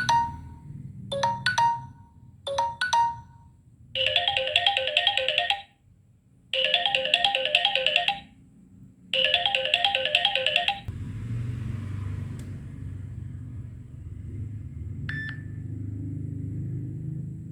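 Samsung Galaxy J3 Pro (2017) phone playing its stock ringtone and notification sounds. Short two-note chimes sound twice in the first few seconds. Then a quick phrase of bright ringtone notes plays three times over, with brief gaps, and a single short chime comes near the end.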